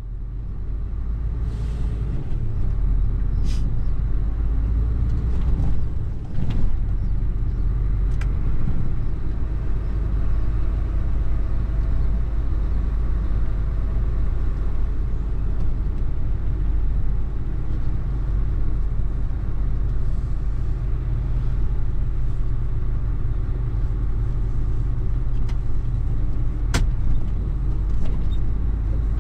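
Mercedes Actros truck's diesel engine running steadily as the truck rolls slowly, heard from inside the cab as a deep, continuous drone, with a few isolated sharp clicks.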